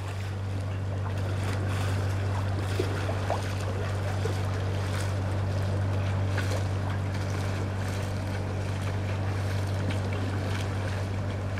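Narrowboat engine running steadily while under way: a constant low drone over an even rushing noise of wind and water.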